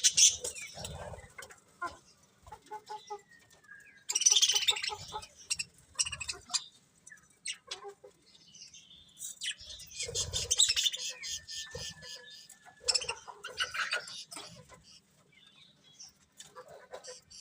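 Budgerigars chirping and chattering: irregular bursts of quick, rapid chirps, loudest about four and ten seconds in, with two long thin whistles in between.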